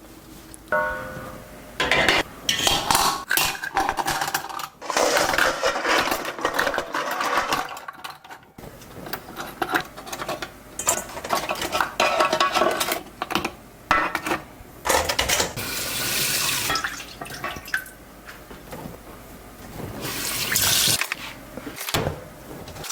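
Water running into a sink in uneven bursts, with dishes clattering.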